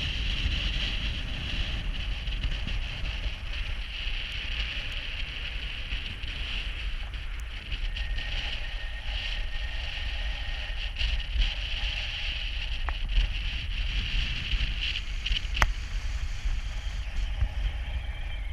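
Wind buffeting the camera's microphone: a gusty low rumble with a steady hiss over it. There is one sharp click late on.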